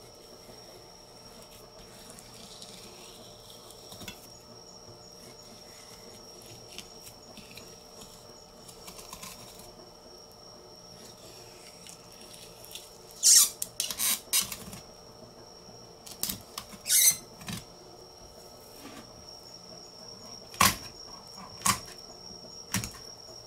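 Knife working along the bone of a small hiramasa (yellowtail amberjack) on a plastic cutting board, with several loud short scraping bursts around the middle. Near the end come three sharp snips of kitchen shears, about a second apart. A faint steady high insect trill runs behind.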